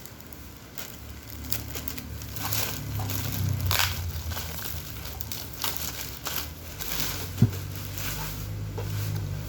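Plastic packaging crinkling and rustling as a boxed subwoofer is unwrapped and handled, with one sharp click about seven seconds in, over a low steady hum.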